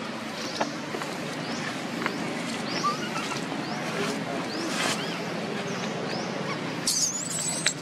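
Outdoor ambience: a steady background hiss with repeated short, high, rising chirps every half second or so, and one longer shrill high call about seven seconds in.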